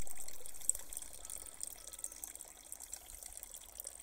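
Water running and trickling: a steady crackly hiss, loudest at first and fading over the first couple of seconds to a lower steady level.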